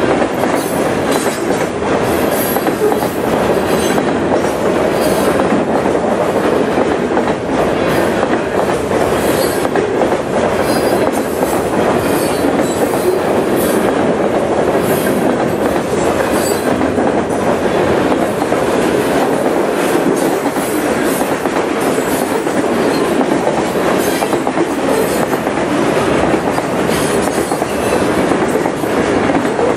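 Freight cars (boxcars, lumber-loaded centerbeam flatcars and covered hoppers) rolling past at close range: a loud, steady rumble and clatter of steel wheels on the rails.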